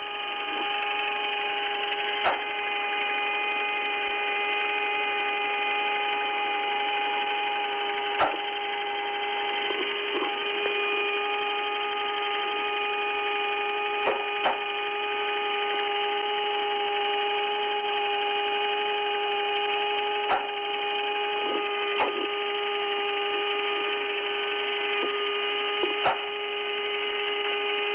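Steady hum and hiss of the Apollo 10 lunar module's onboard voice recording on an open, silent intercom line. One mid-pitched tone with overtones holds unchanged throughout, broken by about seven sharp clicks at irregular moments.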